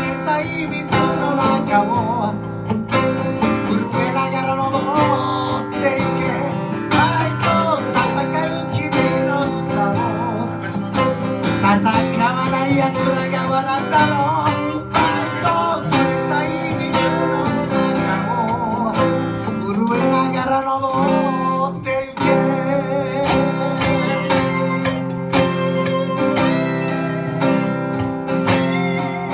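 Live music: an acoustic guitar strummed together with an electric guitar, steady throughout, with a man's singing voice in places.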